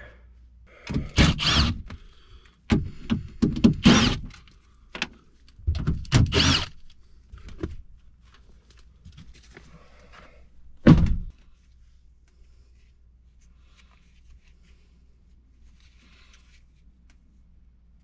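Thunks and rattles of an air handler's sheet-metal access panel being taken off and handled, several clusters of knocks in the first seven seconds and one loudest single knock about eleven seconds in, followed by faint handling sounds.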